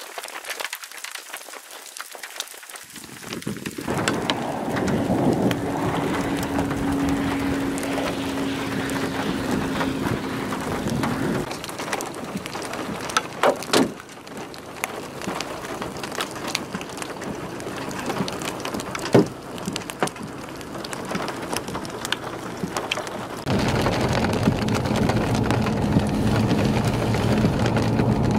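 Heavy rain pouring down, with a few sharp cracks of thunder in the middle. Near the end a vehicle's low engine and road drone joins the downpour as it drives through the storm.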